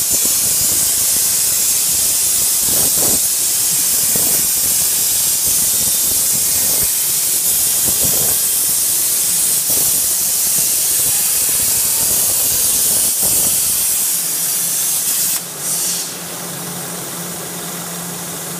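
CNC plasma cutting torch cutting steel plate: the plasma arc and its air jet make a loud, steady hiss. About fourteen seconds in the arc stops, a brief hiss follows, and a quieter steady hum of the machine is left.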